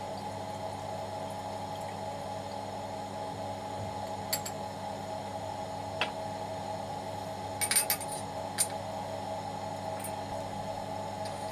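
Liquid acetic anhydride poured through a glass funnel into a two-neck round-bottom flask, a trickle over a steady hum, then a few sharp glass clinks, the loudest a quick cluster about two-thirds of the way through as the funnel is lifted out of the flask's neck.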